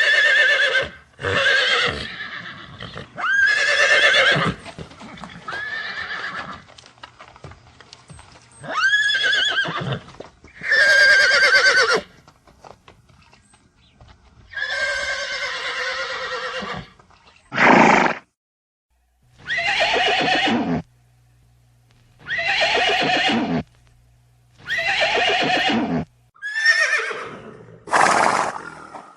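A series of horse neighs and whinnies, about a dozen separate calls. Each lasts a second or two, with a sharp rise and then a shaky, wavering fall in pitch, and short pauses between them.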